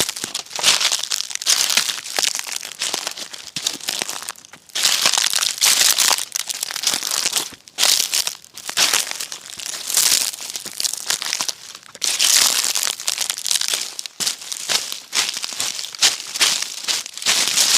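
Footsteps crunching through dry fallen leaves, first at a walk, then switching to quicker running steps about three quarters of the way in.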